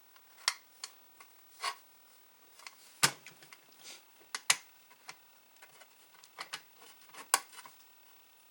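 Scattered clicks and light knocks of the floppy disk drive's parts being handled and fitted back together, three of them sharper than the rest.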